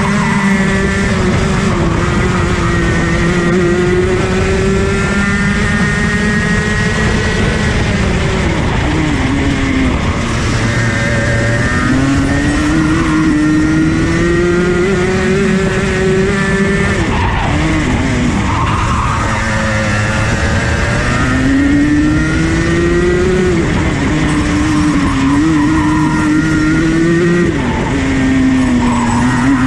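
Rotax Max 125cc two-stroke kart engine at full throttle on a flying lap, heard from on board. Its pitch climbs steadily down the straights and falls away sharply under braking for each corner, several times over.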